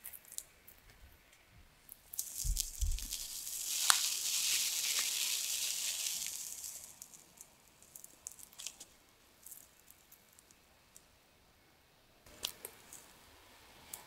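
A crisp-crusted black-tea sugar cloud bread (a baked meringue bread topped with pearl sugar) being torn open by hand: the crust crackles and tears for several seconds, loudest about four seconds in. Scattered small crackles follow, with another short crackle near the end as the halves are pulled apart.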